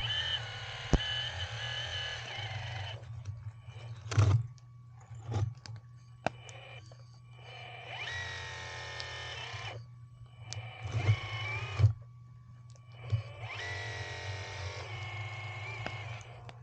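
RC hydraulic excavator's pump motor whining in four bursts of a few seconds, its pitch wavering, with sharp knocks and clunks in between over a steady low hum.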